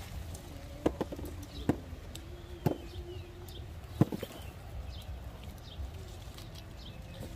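Four sharp clicks about a second apart as green jujube fruits are plucked by hand from the branches into a woven basket, over a steady low rumble, with a few faint bird chirps behind.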